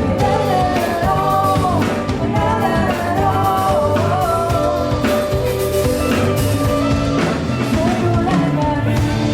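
Live cover band playing a Thai pop-rock song, with drum kit and guitar under a wavering melodic lead line, near the song's end.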